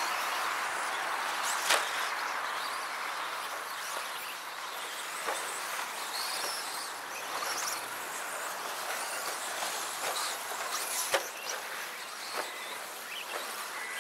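Electric 1/10-scale RC stadium trucks running laps on a race track, a steady hiss of motors and tyres. Sharp knocks cut through it, loudest about two seconds in and again about eleven seconds in.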